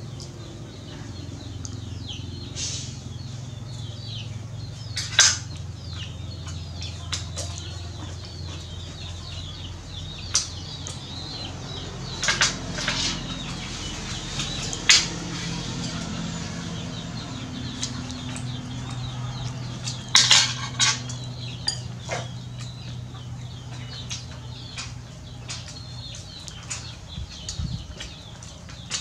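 A steel fork and knife clinking against a ceramic bowl and a metal tray while a roast pig head is eaten and cut, with a handful of sharp clinks at irregular intervals.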